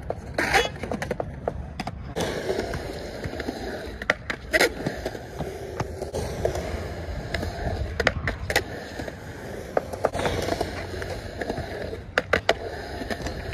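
Skateboard wheels rolling over rough concrete, with sharp clacks of the deck and trucks striking the ground several times.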